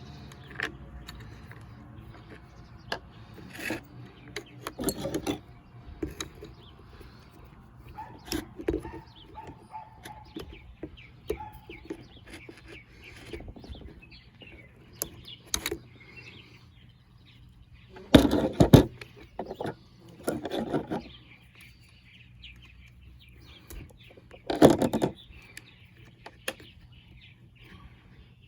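Irregular clicks, taps and knocks of small chainsaw parts and hand tools being handled while fuel lines are refitted to a Poulan Pro chainsaw, with two louder knocks in the second half. Birds chirp faintly in the background.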